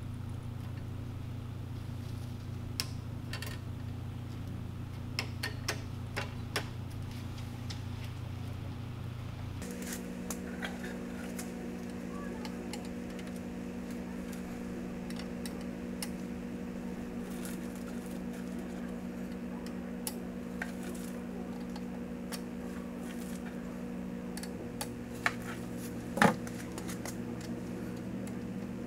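Light clicks and taps of a metal cut-ring head gasket and parts being handled on a bare BMW M50 engine block, over a steady low hum whose pitch shifts about a third of the way in. One sharper click comes near the end.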